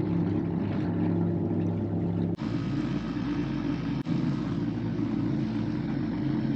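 Outboard motor of a small boat running steadily at cruising speed, a low hum, with abrupt breaks about two and a half and four seconds in.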